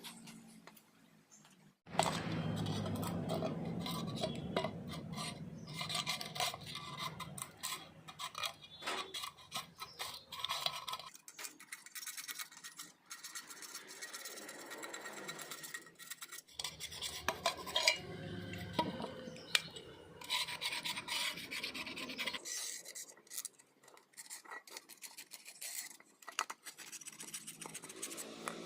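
Hand rasping and scraping on metal in uneven strokes, typical of rust being filed or rubbed off a rusty 8-inch speaker's frame. It starts about two seconds in and pauses twice.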